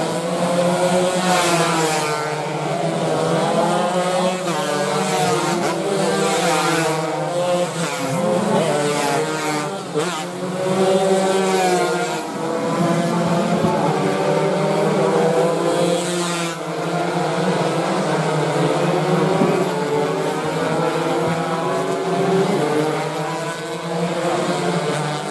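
Several two-stroke underbone race motorcycles of the 116 cc standard class racing, their engines revving hard and overlapping, rising and falling in pitch as the bikes accelerate, shift and pass.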